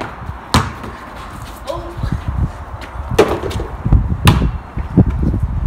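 A basketball bouncing on paving slabs and hitting the wall-mounted hoop as a basket is scored: a few sharp knocks and low thuds, the loudest just after four seconds in.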